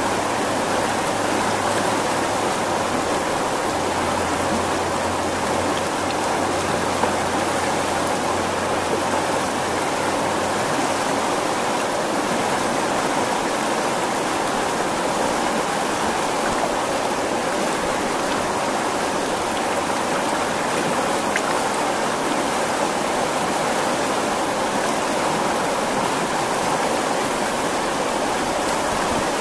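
Botan River rushing and splashing over rocks along the bank, a steady sound of fast-flowing river rapids.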